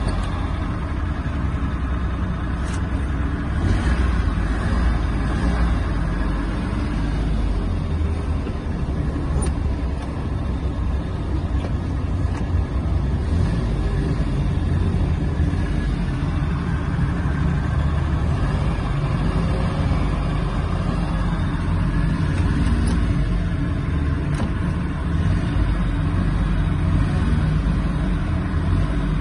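Suzuki Mehran's small three-cylinder petrol engine running while the accelerator pedal is pumped, its sound swelling and easing off with the throttle.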